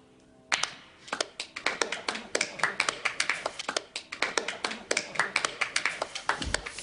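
Hand clapping from a few people, starting about half a second in: irregular sharp claps, several a second, some louder than others.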